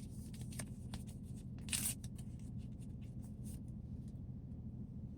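Steady low hum of a running generator, with small clicks and one short rustle of handling noise a little under two seconds in.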